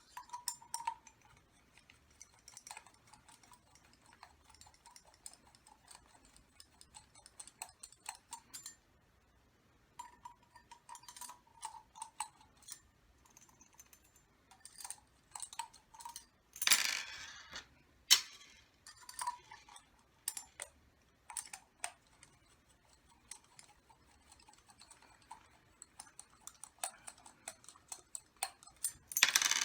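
Small metal engine parts and hand tools clicking, clinking and scraping as an OS Speed 21XZ-R model nitro engine is taken apart by hand. There is a louder clatter about two thirds of the way in and another at the very end.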